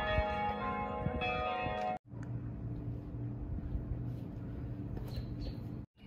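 Bells ringing with many overlapping sustained tones, cut off abruptly about two seconds in. Then comes outdoor ambience with a steady low hum and a few faint clicks.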